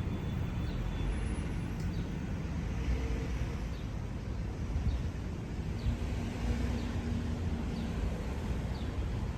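Steady low rumble of a vehicle in motion, with faint short high ticks recurring a little more than once a second.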